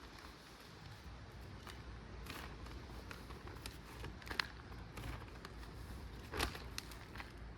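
Soil being filled in by hand around a freshly set plant: scattered light scrapes, rustles and ticks, with a sharper click about four seconds in and another about six seconds in.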